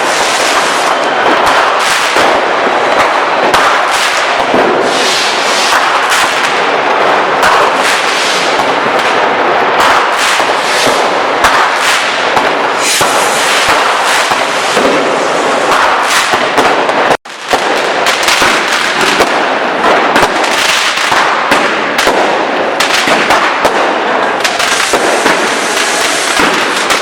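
Dense, unbroken barrage of consumer fireworks and firecrackers going off all around, bangs and crackles overlapping without pause, with one brief break about two-thirds of the way through.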